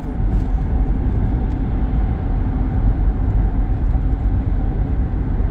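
Steady road noise of a moving car heard from inside the cabin: a constant low rumble of tyres and engine at driving speed.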